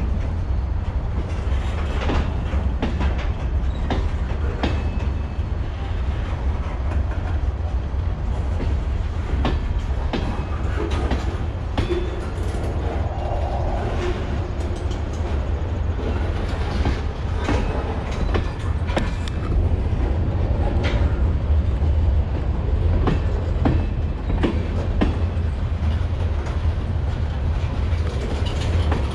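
Freight train passing, with a steady low rumble and repeated clacks of wheels over rail joints.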